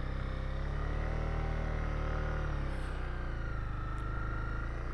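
2020 Honda CB300R's single-cylinder engine running at low revs while the bike is ridden through slow, tight turns. The revs rise slightly about a second in and ease back down near the middle.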